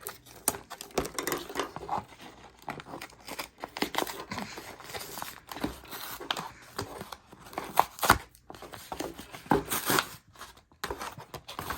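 Post-it notes packaging being torn and crinkled open by hand: irregular rustling and tearing with scattered clicks, and a sharp click about eight seconds in.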